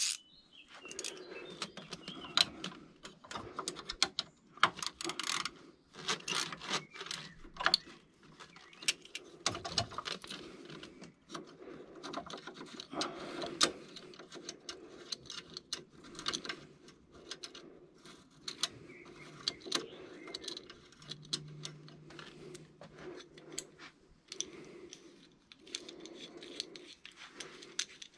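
Hands handling plastic and metal parts in a car's engine bay: irregular clicks, taps and small rattles of clips, connectors and intake pieces being worked loose and moved.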